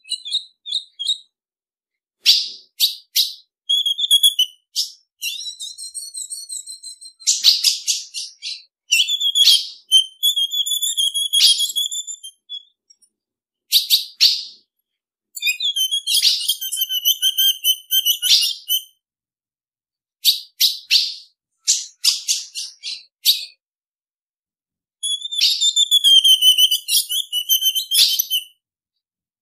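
Female ultramarine grosbeak (azulão) calls: bouts of sharp, high chip notes and short wavering whistles, repeated with brief silent gaps between them.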